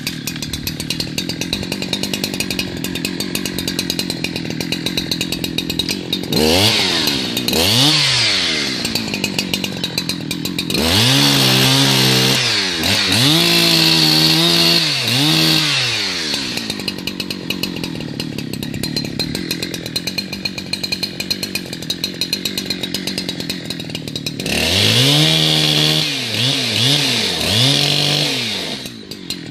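Two-stroke chainsaw idling, then revved up three times, its pitch rising, holding and dipping under load as it cuts limbs off a felled blue gum trunk.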